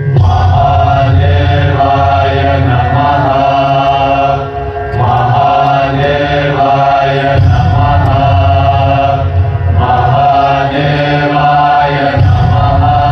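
Devotional chant with music: voices hold long notes in phrases a few seconds long, over a deep steady drone. The chant dips briefly twice between phrases.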